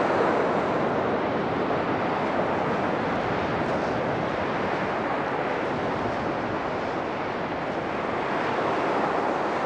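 Sea surf breaking and washing over a rocky jetty, a steady rushing noise with no pauses, with wind buffeting the microphone.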